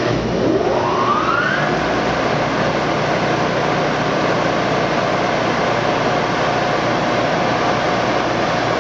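The 100 hp spindle drive of a Blanchard 26HD-48 vertical-spindle rotary surface grinder starting up. A whine rises in pitch over about the first second and a half as the grinding wheel spindle comes up to speed, then settles into a steady running hum with a constant tone.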